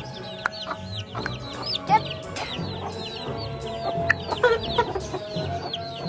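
A brood of baby chicks peeping, many short high peeps that each fall in pitch, several a second, with a hen clucking a few lower notes among them.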